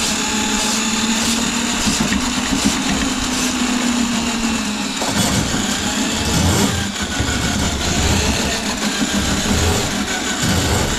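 Motor of a powered drain snake running steadily, its pitch sagging slightly. From about five seconds in it runs unevenly, with irregular low pulses, as the cable works against a grease clog in the kitchen sink drain line.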